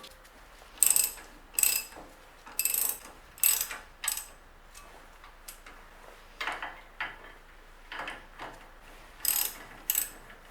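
Hand ratchet wrench worked in short strokes, clicking in a string of brief bursts with a pause about halfway through, as a bolt is wound in on the brake caliper assembly.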